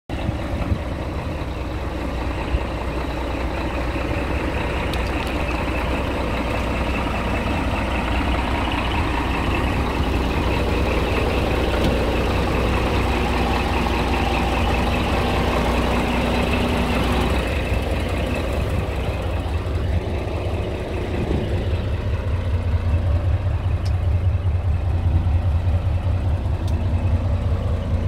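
Scania R340 truck's diesel engine idling steadily with a low hum, which grows heavier in the last third.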